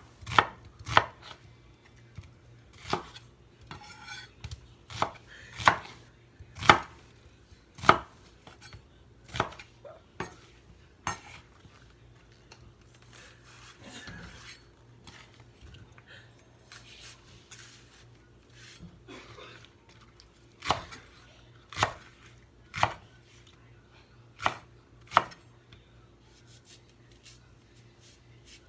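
A kitchen knife chopping on a cutting board in separate, unhurried strokes. There is a pause of several seconds partway through, with only faint handling noise, before the chopping resumes.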